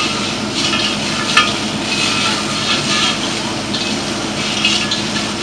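Fire hoses spraying hard in a steady hiss that swells and eases, over the steady hum of a fire engine's pump.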